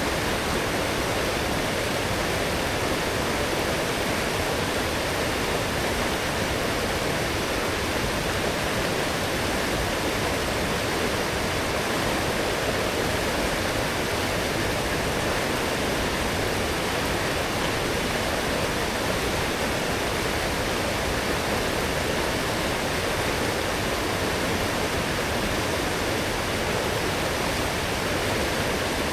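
A strong forest stream swollen by heavy rain, rushing steadily over its bed with a dense, even roar of water.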